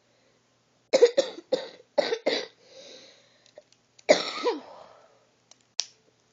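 A person coughing: a quick run of five coughs about a second in, then one longer cough about four seconds in. A single sharp click near the end.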